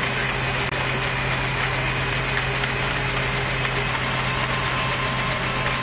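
Steady machinery drone: a constant low hum with a fainter high tone over even noise, without separate shots or changes. It drops out for an instant under a second in.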